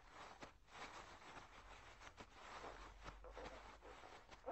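Near silence, with only faint background noise.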